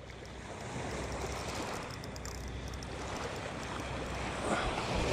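Small waves washing onto a pebble beach, with wind on the microphone, the surf growing steadily louder.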